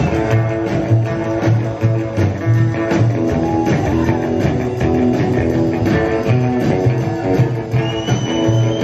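Rockabilly band playing live: upright bass on a steady pulse of about two notes a second under acoustic and electric guitars and drums.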